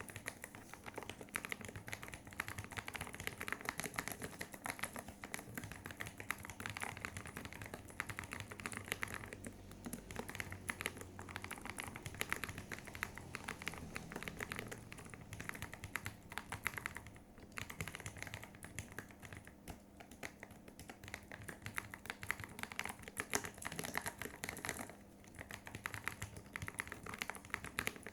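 Steady fast typing on an Altec Lansing ALGK8404 mechanical keyboard with blue switches that are lubed with grease and dampened inside the case with EVA foam and masking tape. Keystrokes click in dense runs, with brief pauses twice.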